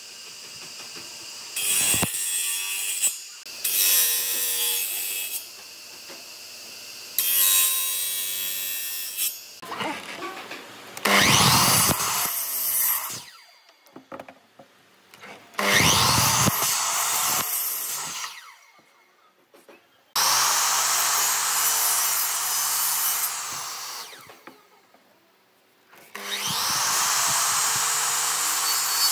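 A disc sander's motor running while a board is pressed against the spinning disc in three short bursts. Then a miter saw cuts hardwood boards four times, each cut starting loud and dying away as the blade spins down.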